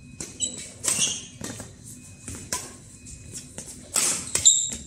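Badminton rally: rackets smacking the shuttlecock about once a second, mixed with sharp shoe squeaks on the court surface. The loudest hits and squeaks come near the end.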